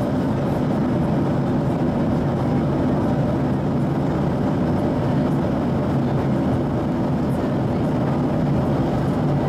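Steady, low rushing cabin noise of an airliner in flight, the engines and airflow heard from a window seat.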